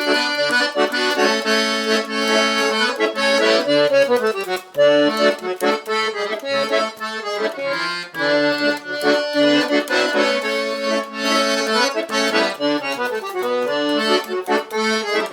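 Instrumental break of a gaúcho vanera song, with the accordion playing the melody in chords and no singing.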